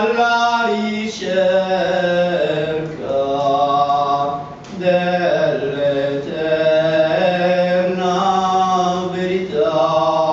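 A man singing a bhajan solo into a microphone, in long held notes that slide from one pitch to the next, with a short breath about four and a half seconds in.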